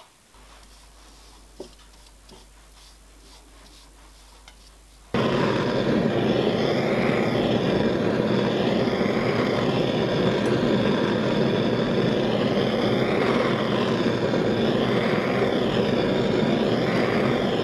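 Gas torch flame burning steadily with a loud, even rushing, heating a steel plate for tinning with solder. The flame noise starts abruptly about five seconds in, after a few faint clicks and handling sounds.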